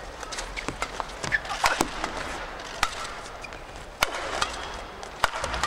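Badminton rally: rackets striking the shuttlecock in sharp cracks every second or so, the loudest about four seconds in, with shoes squeaking on the court between shots.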